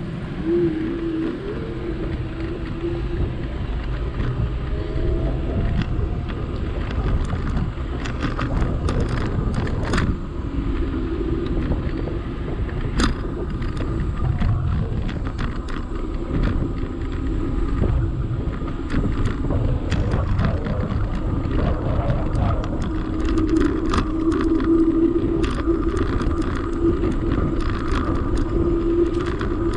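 Riding noise picked up by an action camera on a moving vehicle: a steady low rumble of wind and road, a wavering whine, and many small rattles and knocks over bumps.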